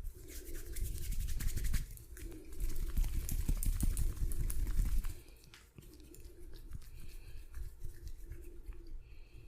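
Hands rubbing rapidly over skin and hair in a vigorous massage, a scratchy brushing close to the microphone. It is loudest for the first five seconds or so, then goes on more softly.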